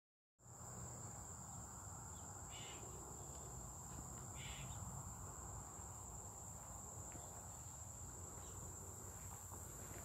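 Cicadas droning in the trees with one steady, high-pitched buzz. Two short, lower calls from another animal break in, about two seconds apart, a couple of seconds in.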